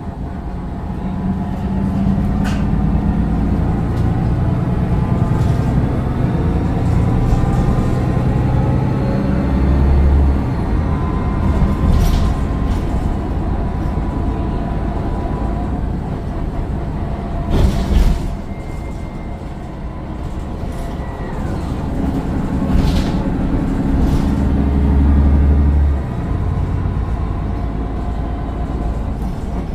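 Mercedes-Benz Citaro O530 bus under way, heard from on board: its Daimler OM906 six-cylinder diesel pulls and eases through the ZF automatic gearbox, with a thin turbo whine above the engine note. A few sharp knocks from the bus body, the loudest about 18 seconds in.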